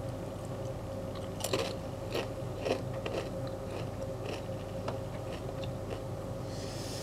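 Doritos Chilli Heatwave tortilla chips being chewed with the mouth closed: irregular crisp crunches, loudest in the first three seconds, then thinning out as the chips are chewed down.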